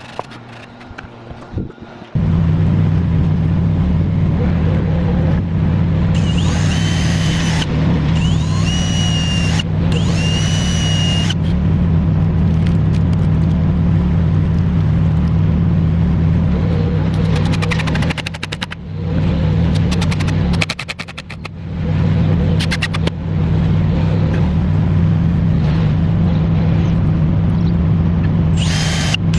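A motor starts up about two seconds in and runs with a steady low drone, briefly dropping away twice for a moment.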